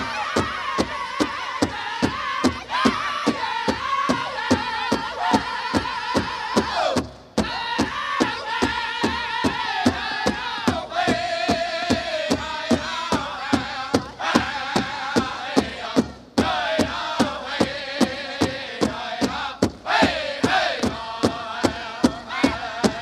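Powwow drum and group of singers performing a dance song: high, wavering voices chanting together over a steady, even beat on the big drum. The voices stop for a moment a few times while the drumbeat carries on.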